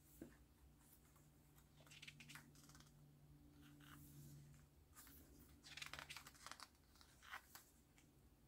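Pages of an album photobook being turned and handled: faint paper rustles and soft flicks several times, the busiest cluster about five to six and a half seconds in, over a low steady hum.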